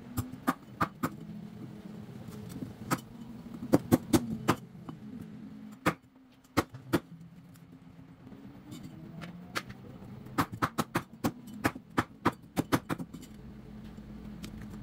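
Meat cleaver chopping a grilled chicken on a round wooden chopping board: a run of sharp, irregular chops, often in quick clusters of two to four, over a steady low hum.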